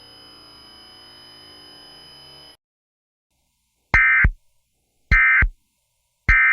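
Three short bursts of EAS SAME digital data tones, the end-of-message signal, each under half a second and about a second apart, starting about four seconds in. Before them, a faint steady background with a couple of thin high tones stops abruptly, followed by a second or so of silence.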